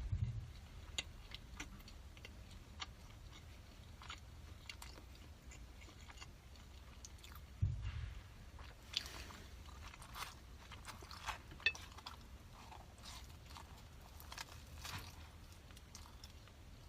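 Close-miked chewing and biting, with scattered small crunchy clicks, most likely a crisp youtiao (fried dough stick) being eaten. There are two low thuds, one at the start and one about eight seconds in.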